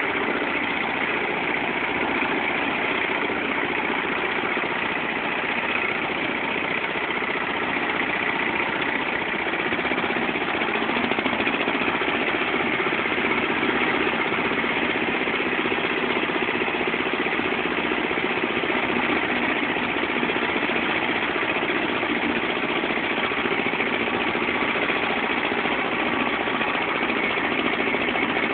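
Agrale 4100 tractor's diesel engine running steadily and loudly, growing a little louder about a third of the way through.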